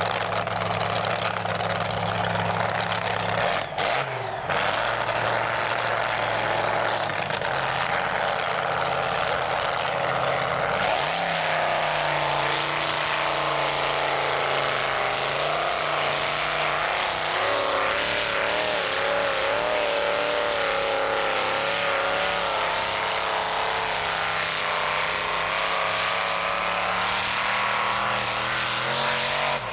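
Modified pulling tractor's engine running loud and steady, then rising in pitch about eleven seconds in and wavering up and down in pitch as it works against the weight-transfer sled.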